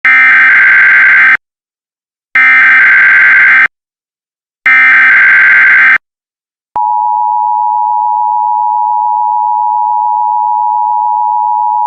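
Emergency Alert System tones: three short bursts of SAME header data, each about a second and a half long with brief gaps between them. Then, about seven seconds in, the steady two-tone EAS attention signal comes on and holds.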